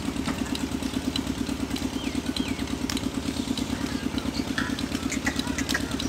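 An engine running steadily at idle with a quick, even beat, about ten pulses a second, with short high chirps scattered over it.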